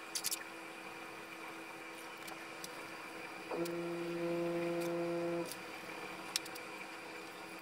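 A few light clicks of small parts being handled, then a steady electric hum that starts about halfway through, holds one pitch for about two seconds and stops.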